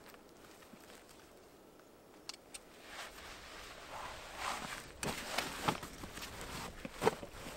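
Rustling of a backpack and dry grass as the pack is slipped off the shoulder and handled, starting about three seconds in, with several sharp clicks and knocks of gear, the sharpest near the end.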